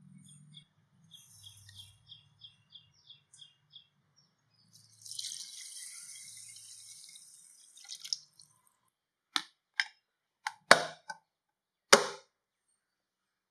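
A run of light ticks, then water poured into a glass bowl of moong dal, rice and urad dal for about three seconds. After that come several sharp plastic clacks as a plastic lid is handled, the loudest two near the end.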